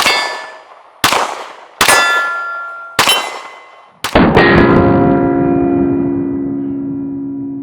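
Springfield Armory Echelon 9mm pistol shots ringing steel targets: single shots about once a second, each followed by a clang that rings for about a second. About four seconds in, a quick string of shots is followed by a long, low ringing tone that slowly fades.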